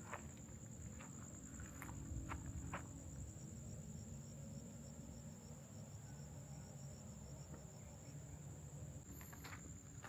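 Insects droning in one steady high-pitched note, with a second insect chirping in a fast even series of pulses through the middle. A few short sharp clicks sound near the start and again near the end.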